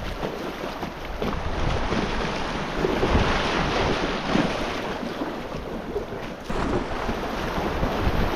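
Rushing, splashing river water around an inflatable kayak running a small riffle, with wind buffeting the microphone.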